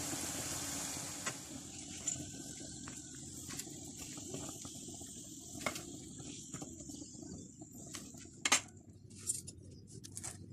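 Hot oil sizzling around potato balls deep-frying in a kadhai, which stops after about a second and a half. A quiet stretch follows with a few scattered sharp clicks.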